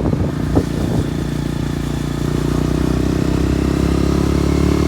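KTM motorcycle engine running steadily while under way, its note growing a little clearer and louder about halfway through.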